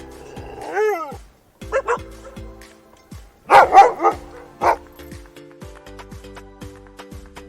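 German Shepherd dog barking over light background music: a high whining yelp about a second in, two short barks, then a loud burst of several barks a little later and a single bark after it.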